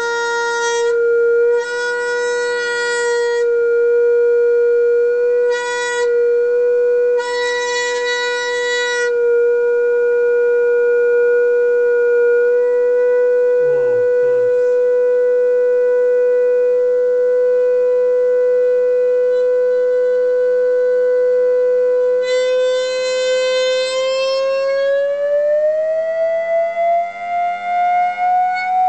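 A steady test tone near 500 Hz is played through a loudspeaker into a homemade wok hang drum to excite its vibration modes for cymatics. Several times in the first nine seconds, and again about 22 seconds in, the tone turns buzzy and rasping. It then glides smoothly upward in pitch near the end as the drive frequency is swept toward another mode.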